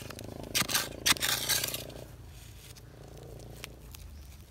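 A small bamboo-handled metal digging tool scraping and chopping into dry, sandy soil while digging out a field-cricket burrow: several sharp strokes in the first two seconds. After that come fainter scuffing in the soil and a single small click.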